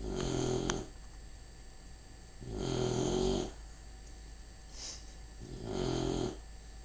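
A pet snoring in its sleep: three long snores, each about a second long and about three seconds apart. A short sharp click comes near the end of the first snore.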